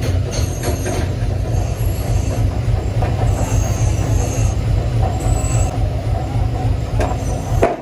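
Heavy forging-shop machinery running with a continuous low rumble and scattered metallic clicks.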